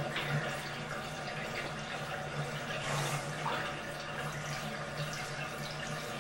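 Tap water running steadily in a small tiled bathroom, over a low steady hum.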